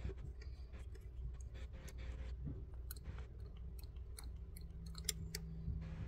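Small metallic clicks and taps from handling a removed diesel injector pump and its fuel line fitting, scattered and bunched together in the second half, with one sharper click about five seconds in.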